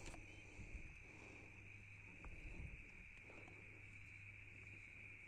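Near silence, with a faint steady high-pitched drone of night insects and a soft knock right at the start.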